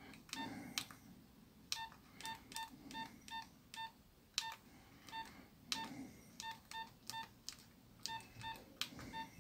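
Nokia mobile phone keypad beeping as its buttons are pressed: about twenty short, identical beeps, each with a small key click, coming in quick irregular runs. The keys are stepping through the settings menu and entering the security code for a factory reset.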